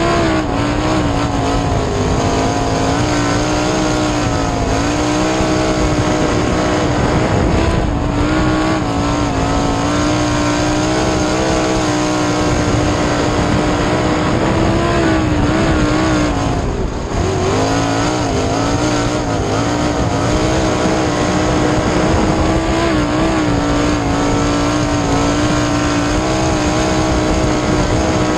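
Onboard sound of a winged 410 sprint car's V8 engine running at racing speed on a dirt oval. The steady engine note dips briefly every few seconds and climbs back, most deeply about seventeen seconds in.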